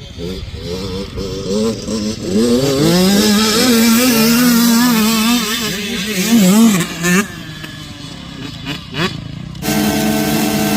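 Dirt bike engine revving. Its pitch rises, wavers through several blips of the throttle and falls away, with another rise about nine seconds in. Music comes in near the end.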